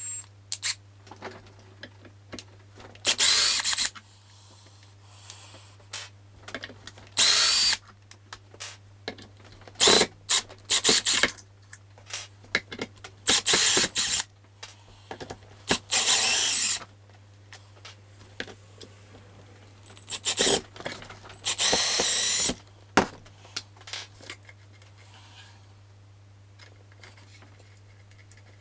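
Cordless power screwdriver unscrewing the screws that hold a loudspeaker driver in its cabinet, in about eight short runs of half a second to a second each, with handling clicks between them.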